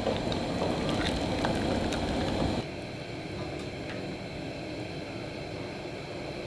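Broth at a rolling boil in a large stainless steel stockpot, a steady bubbling. It cuts off abruptly about two and a half seconds in, leaving a quieter steady background hiss.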